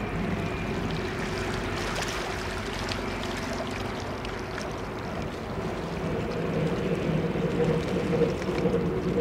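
Steady mechanical drone of river and rail traffic over water washing at the riverbank, with a low engine hum that grows louder in the last few seconds.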